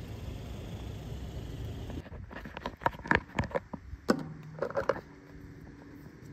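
Steady low background rumble, then, about two seconds in, a run of knocks and rubbing from fingers handling a phone right at its microphone.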